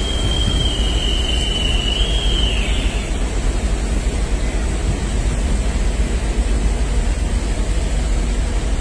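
Steady low rushing rumble, with a thin high whistle-like tone held for about the first three seconds.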